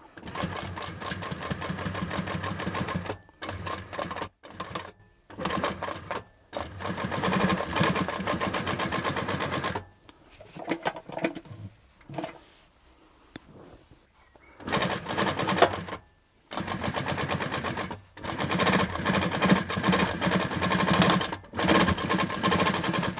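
Hightex 7138 industrial compound-feed walking foot sewing machine, driven by its servo motor, stitching through thick layers of denim in a series of runs with short stops between them, each run a rapid stitch-by-stitch ticking. It sews over the six- and eight-layer seam lumps with no trouble.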